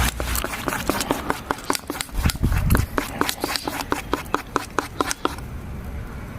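A utensil clicking rapidly against a bowl while flour and water are stirred into a batter for flatbread, several clicks a second, stopping about a second before the end.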